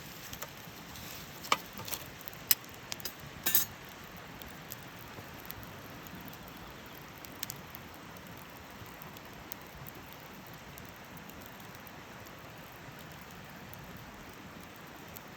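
Campfire burning with a steady low hiss and sharp crackles and pops from the wood, several in the first few seconds and a few fainter ones later.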